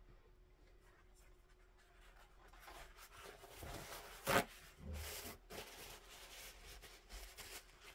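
A paintbrush working acrylic paint on paper: faint, soft, scratchy rubbing strokes that come and go, with a single sharp knock about four and a half seconds in.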